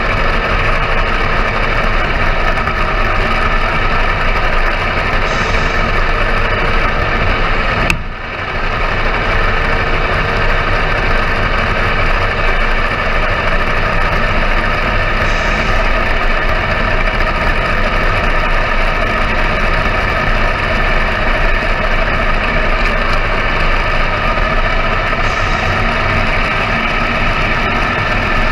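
Steady, unchanging engine drone from a radio-controlled model truck, with a brief dip about eight seconds in.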